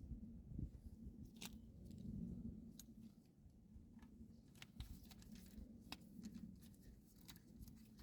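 Faint, scattered light clicks and taps of tools and metal parts being handled, about a dozen spread irregularly, over a low steady hum.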